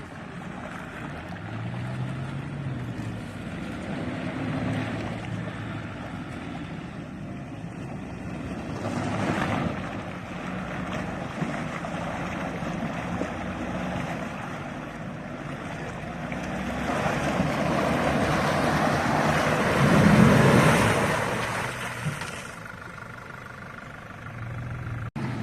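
Off-road vehicle engine revving and straining, rising and falling, with tyres churning through mud and water. The effort swells in two pushes, a short one about nine seconds in and a longer, louder one peaking about twenty seconds in.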